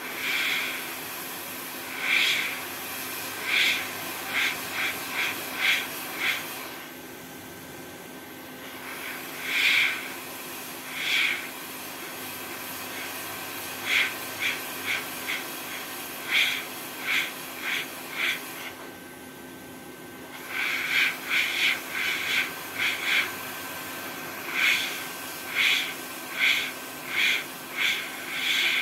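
Hot air rework station blowing at 440 degrees and 120 litres a minute onto a laptop motherboard chip to melt it free: a steady airy hiss that drops out twice for about a second and a half. Over it, short breathy puffs come in quick runs of three to six and are louder than the hiss.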